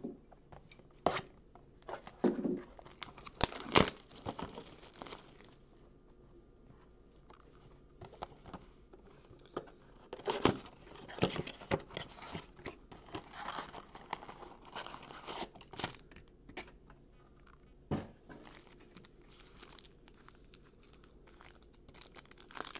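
Plastic shrink-wrap being torn and peeled off a trading-card blaster box, then a foil card pack crinkling as it is torn open by hand. The sound comes as irregular crinkles and sharp snaps, with louder bursts about four seconds in, around ten to eleven seconds in, and at eighteen seconds.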